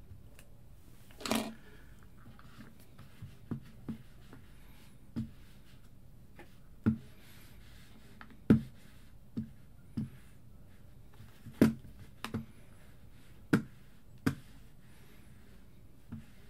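About a dozen short, sharp clicks and taps at irregular intervals, over a faint steady room hum.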